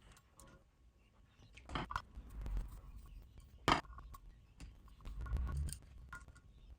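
Small tools and parts being handled while taking apart an amplifier: scattered clicks, scrapes and rustles, with one sharp click about halfway through.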